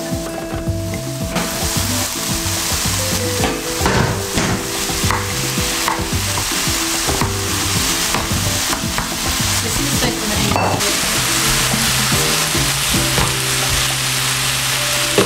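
Diced onion and sliced mushrooms sizzling in a frying pan while a wooden spatula stirs and scrapes through them, with raw chorizo mixed in. The sizzle grows louder about a second and a half in.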